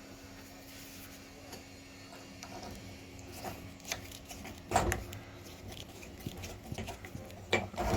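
Small clicks and taps of hand work as the long screw of a Fan-Tastic Vent roof vent's crank handle is fitted, with one sharper knock about five seconds in and a few more clicks near the end, over a faint steady hum.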